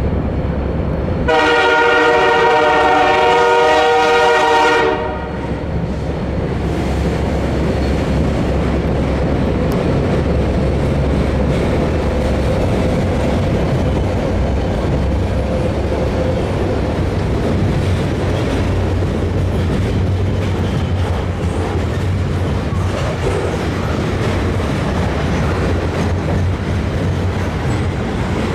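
Canadian Pacific freight locomotive's horn sounding one long blast of about three and a half seconds. After it comes the steady low rumble of the train's diesel locomotives and cars rolling by.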